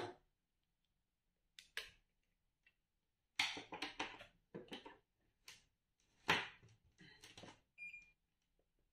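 Plastic clicks, knocks and rustling as a handheld digital multimeter in a rubber holster is handled, then near the end a short high electronic beep from the FNIRSI DMT-99 multimeter as it is switched on.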